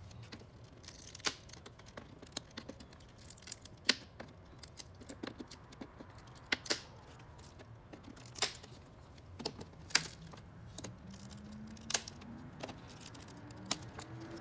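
Plastic grille tabs of a 2010 Toyota Camry upper grille clicking and snapping as a flathead screwdriver pries them out of the bumper cover: a dozen or so sharp clicks at irregular intervals.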